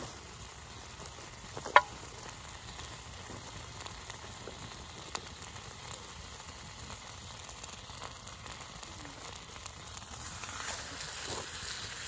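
Beef frying in a pan over a wood campfire, sizzling steadily with small crackles. A single sharp, loud pop comes about two seconds in and a smaller one around five seconds; the sizzle grows louder near the end.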